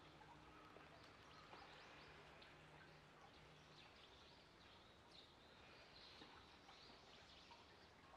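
Near silence: faint outdoor ambience with faint scattered bird chirps.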